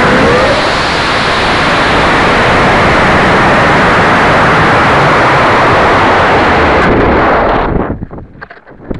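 Estes Pro Series II Leviathan model rocket launching and climbing, heard through a keychain camera mounted on the rocket: a loud, steady rush of motor exhaust and air that fades out about eight seconds in, giving way to gusts of wind on the microphone.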